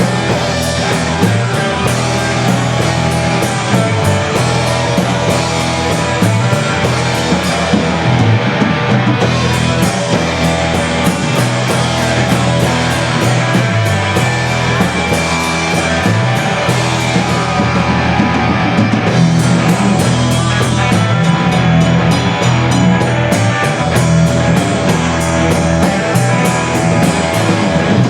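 Rock band playing an instrumental passage with electric guitar and a drum kit keeping a steady beat.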